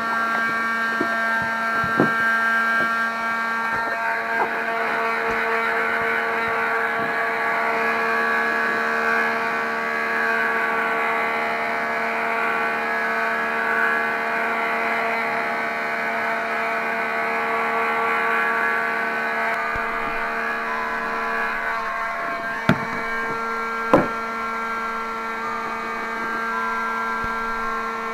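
Electric heat gun running, a steady whir of its fan motor and blowing air. Two short sharp clicks come near the end.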